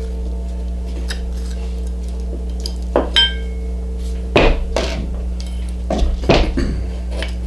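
Metal clinks and knocks as the cover of an old bench grinder is opened and handled: a short ringing clink about three seconds in, then several louder knocks in the second half, over a steady low hum.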